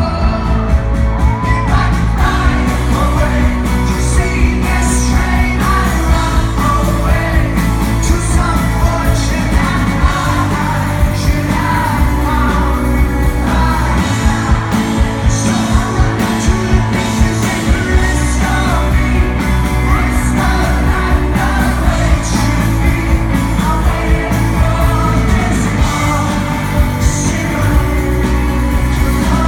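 A live rock band playing a song with a lead vocal, electric guitars, heavy bass and a steady drum beat.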